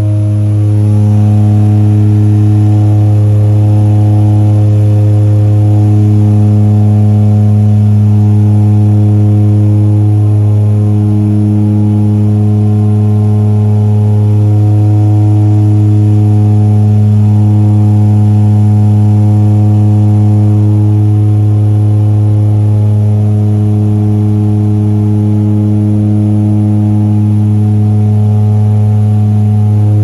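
A seaplane's turboprop engine and propeller droning steadily during the climb, heard inside the cabin: a loud low hum with a stack of higher overtones that slowly swell and fade.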